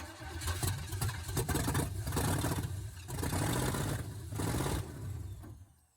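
Truck engine running and revved in several surges, cut off abruptly near the end.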